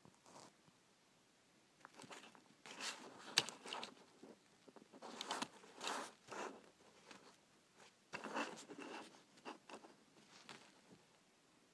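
Hot Wheels '68 El Camino die-cast toy car pushed by fingers across a hard surface, its small plastic wheels rolling and scraping with faint handling rubs and clicks, in three short bouts.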